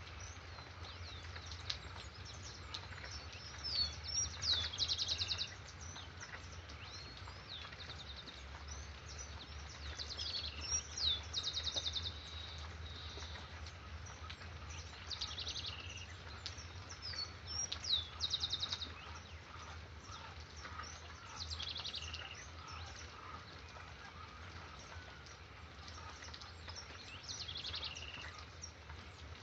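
Songbirds singing. One bird repeats a rapid trill about every three to six seconds, with scattered shorter chirps between, over a faint steady background noise.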